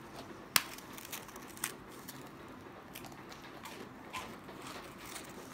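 English Cocker Spaniel crunching and chewing dry dog biscuits. Two sharp crunches about half a second and a second and a half in, then softer, irregular crunching.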